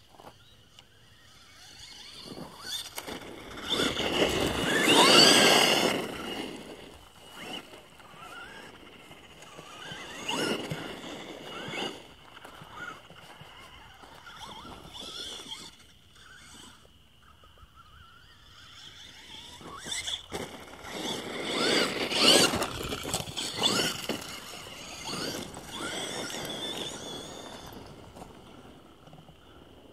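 Traxxas Stampede radio-controlled monster truck driving on gravel, its motor whining up and down in pitch over the crunch of the tyres. It is loudest in two close passes, about four to six seconds in and again around twenty-two seconds, with fainter runs between.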